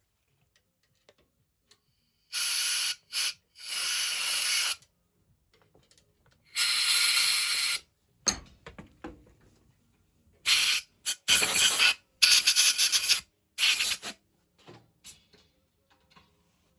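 About eight short hissing bursts from a pressurised jet, each up to about a second long, coming in groups with quiet gaps between, typical of cleaning lapped brass pump parts.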